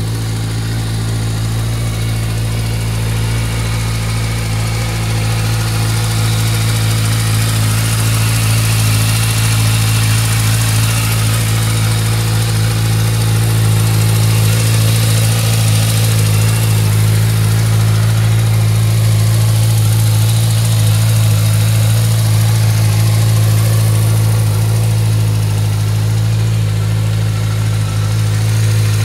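Kawasaki Versys 1000's inline-four engine idling steadily in neutral.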